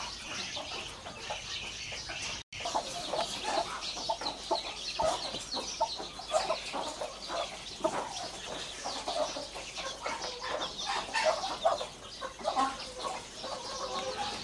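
Baby chicks peeping continuously in short high chirps, with a Thai fighting-chicken hen clucking low among them as she broods them.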